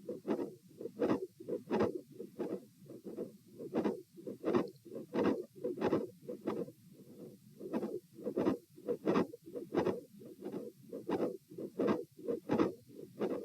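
Human heart sounds heard through a stethoscope: a regular, fairly fast heartbeat of about one and a half beats a second, each beat a lub-dub. The uploader identifies a mid-systolic click and a split second heart sound in these beats.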